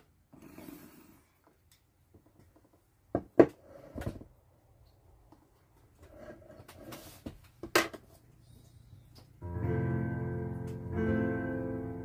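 A few scattered short knocks and faint rustles, the loudest a sharp pair about a quarter of the way in. About three-quarters of the way in, a Yamaha digital piano starts playing sustained chords.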